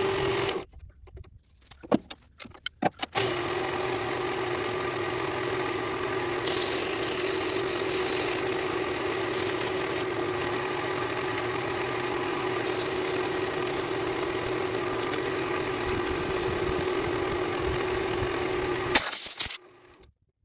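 A workshop power tool's motor running with a steady hum. It stops under a second in, a few sharp clicks follow, then it starts again and runs steadily until it stops shortly before the end.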